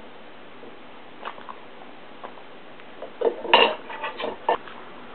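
Knife and fork clinking and scraping against a bowl, a few faint ticks at first, then a clatter of sharp clinks from about three seconds in.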